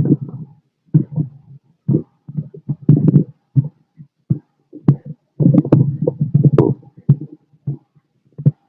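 Bowel sounds heard through a stethoscope on a man's abdomen: irregular bursts of low, partly pitched gurgling with sharp pops and clicks, broken by short silences. The gurgling is busiest a little past the middle.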